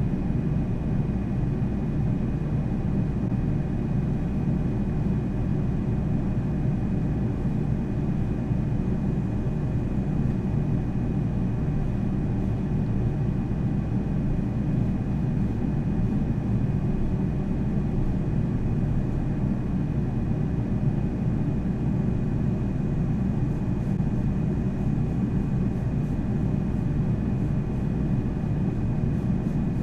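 Parked combine harvester's engine running steadily, a low even rumble with a faint constant high whine over it.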